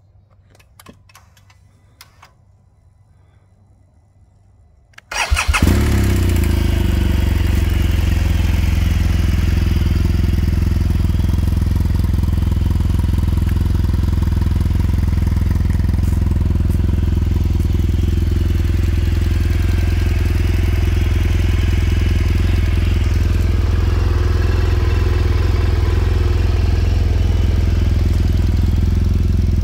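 A few faint clicks, then about five seconds in the BMW R1200GS's liquid-cooled boxer twin cranks briefly and catches on a cold start, settling at once into a steady idle that runs on unchanged.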